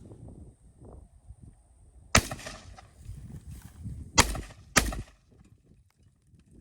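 Three gunshots from a firearm: one about two seconds in, then two more close together about half a second apart, each sharp and loud with a short ringing tail.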